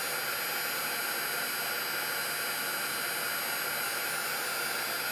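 Handheld embossing heat gun blowing hot air steadily with a faint low hum, melting embossing powder on a tag.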